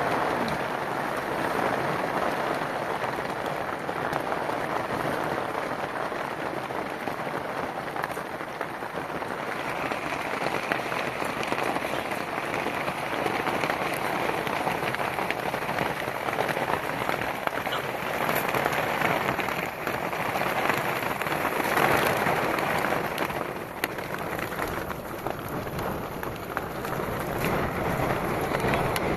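Heavy rain pouring steadily, a dense unbroken hiss of falling water.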